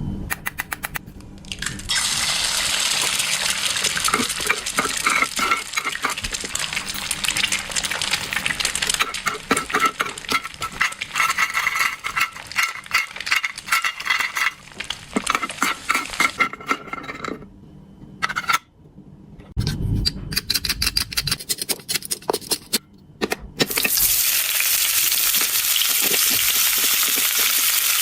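Miniature toy kitchen set being used for cooking: a dense run of small clicks, clinks and crackling from little utensils and food, a pause, then a steady hiss over the last few seconds.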